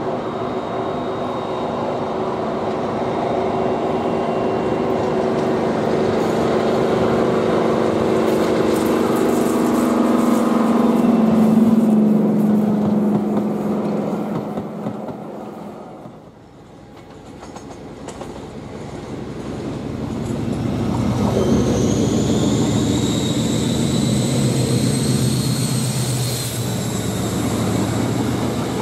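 Class 55 Deltic diesel locomotive's twin Napier Deltic engines working hard as it hauls a passenger train past, the engine note growing louder, then fading as the carriages go by. After a cut, a Colas Rail diesel locomotive passes under power, with a high whistle rising over its engine note for several seconds.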